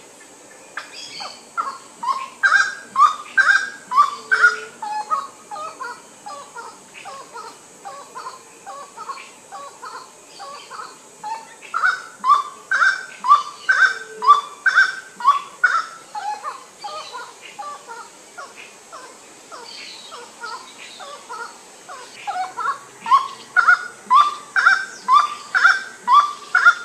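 Grey-cowled wood rails (Aramides cajaneus) calling: loud, rhythmic series of repeated rising notes, coming in three loud bouts with quieter calling between.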